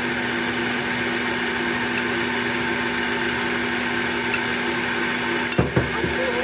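Yonanas 902 soft-serve maker's electric motor running steadily with a constant hum as frozen fruit is churned through its chute. A short clatter of knocks comes about five and a half seconds in.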